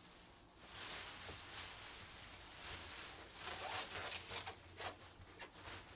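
Faint rustling and scraping of things being handled. About halfway through it turns into a quick run of short clicks and crinkles.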